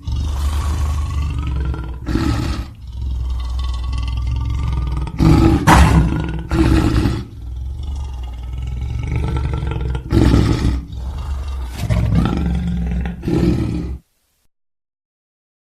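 Lion roaring: a long run of deep roars with several louder swells, cutting off suddenly near the end.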